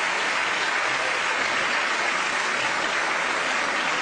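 Studio audience applauding steadily, an even wash of clapping that holds its level throughout.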